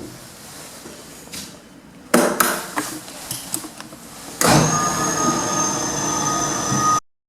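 Platform lift mechanism clanking and knocking, then from about four and a half seconds in running with a steady high whine over mechanical noise, which cuts off suddenly near the end.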